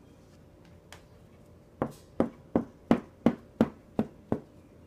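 Rapid knocking on a hard surface: eight sharp knocks in quick succession, about three a second, starting a little under two seconds in.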